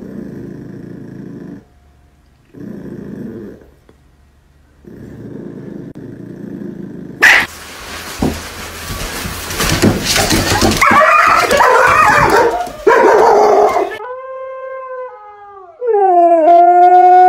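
Dogs howling and barking: three short muffled howls, then several seconds of loud, harsh barking and howling. Near the end comes a husky's long, clear howl, falling in pitch and then holding steady.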